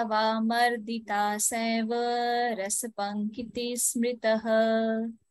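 A voice chanting a Sanskrit verse in a steady, sing-song recitation on held notes, with short breaths between phrases.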